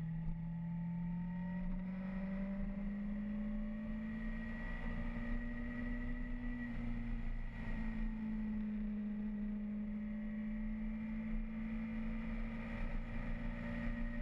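Motorcycle engine running at road speed, heard through a bike-mounted action camera's microphone, with a low wind rumble. Its humming note climbs slowly over the first few seconds, eases off briefly about halfway, then holds steady.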